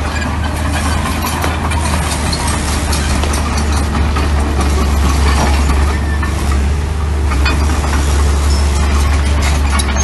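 Mini bulldozer's diesel engine running steadily with a strong low hum, with many small clicks and clatter over it.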